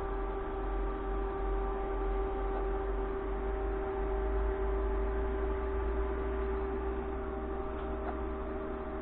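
A steady electrical-sounding hum of several held tones over a low rumble, unchanging throughout.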